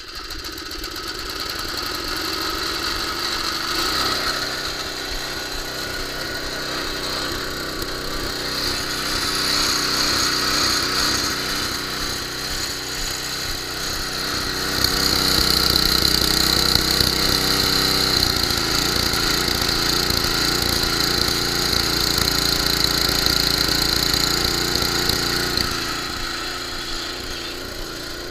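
Tecumseh 5 hp single-cylinder small engine on a Huskee snowblower running steadily. It runs louder from about halfway through and eases off near the end.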